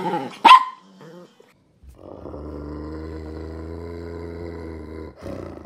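A small brindle dog gives one loud, sharp bark about half a second in. Then, from about two seconds in, a German shepherd growls low and steadily for about three seconds.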